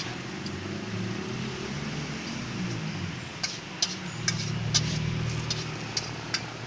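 A motor vehicle engine running close by, with a dozen or so sharp clicks scattered through the second half.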